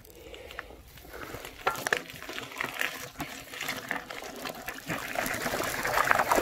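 Bicycle tyres rolling through a muddy puddle on a dirt track, water splashing and spattering, growing louder.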